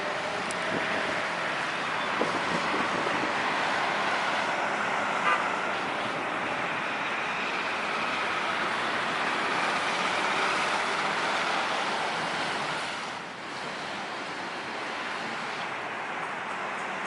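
Jet airliner's engines running as it passes near the airport, a steady rush with a faint whine over it that dips briefly about thirteen seconds in.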